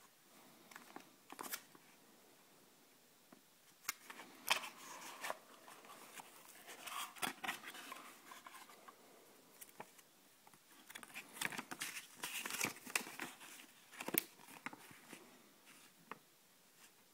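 Paper and paperboard being handled: a small white cardboard box is opened and a folded paper instruction leaflet pulled out and unfolded, giving scattered rustling and crinkling with sharp little clicks and scrapes, coming in two main clusters.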